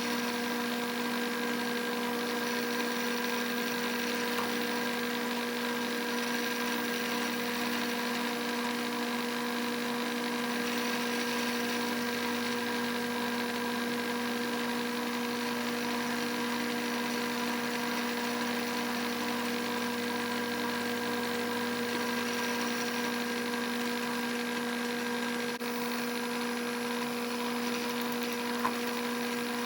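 Bridgeport milling machine running with a steady, even hum of several held tones, with a couple of faint ticks.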